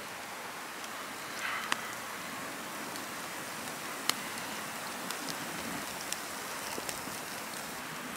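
Small campfire crackling with scattered sharp pops, the loudest about four seconds in, over a steady hiss of falling wet snow.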